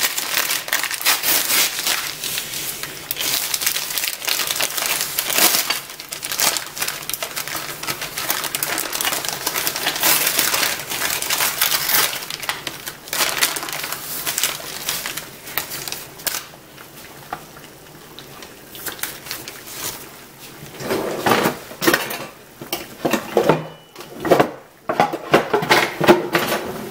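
Crinkling and rustling of puff pastry packaging being unwrapped, with dense crackles for the first fifteen seconds or so. The sound then turns quieter, with a few sharper handling knocks near the end as the pastry sheet is laid out on a plastic cutting board.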